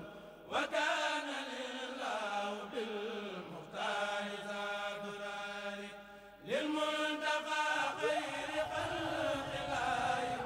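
A voice chanting an Arabic religious poem in praise of the Prophet, in long, drawn-out held notes, breaking off briefly twice. A low rumble joins about eight seconds in.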